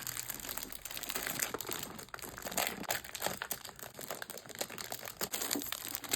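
Paper rustling and crinkling as a bundle of vintage paper ephemera is handled and sorted, with many small irregular crackles throughout.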